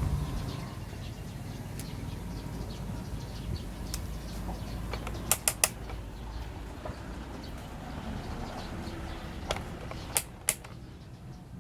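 Sharp clicks and taps over a steady low background rumble: a quick run of three about five seconds in, a single one about four seconds later, and two more close together soon after.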